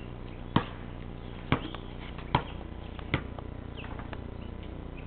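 Basketball being dribbled on concrete: four bounces a little under a second apart, which stop about three seconds in.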